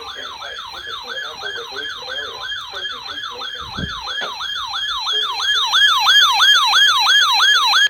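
Electronic siren-style alert tone from a weather radio receiver, sweeping up and down in pitch about three times a second. It grows louder over the last couple of seconds and then cuts off suddenly, ahead of the severe thunderstorm warning broadcast.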